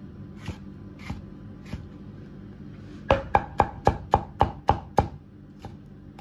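Chinese cleaver cutting a tomato on a round end-grain wooden chopping block: a few light slicing strokes, then about three seconds in a quick run of about eight sharp chops, roughly four a second, as the tomato is diced.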